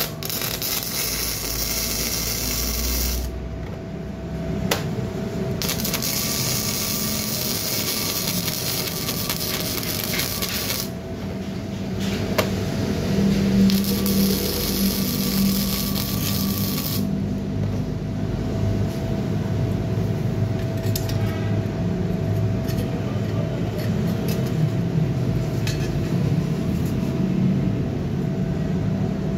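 MIG welder's short-circuit arc crackling and buzzing steadily as the wire feeds into the weld, with the wire feed speed turned up a little. The sharper hiss of the arc thins out and comes back a few times.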